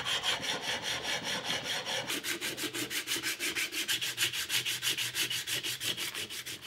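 Fast, even back-and-forth rubbing strokes of hand filing and abrasive finishing on small machined metal parts, about five strokes a second. The strokes change in character about two seconds in.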